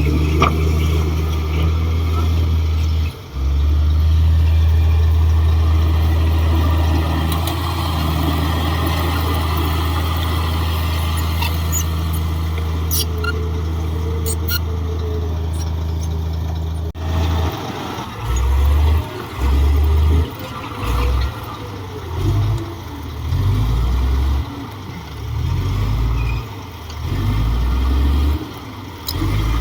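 Diesel engine of a Komatsu D58 bulldozer running with a steady low drone; about halfway through the sound changes abruptly and the low rumble then comes and goes in short, uneven surges.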